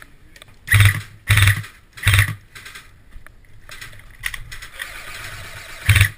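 Airsoft rifle firing three short, rapid bursts about a second in, then another burst near the end.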